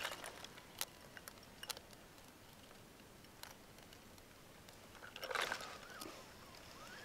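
Quiet open-air ambience: a few light clicks in the first seconds, then a brief rustle about five seconds in, followed by faint high gliding calls.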